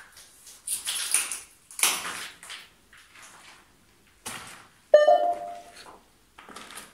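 A few soft hissing noises, then about five seconds in a single bright ping that rings briefly and fades.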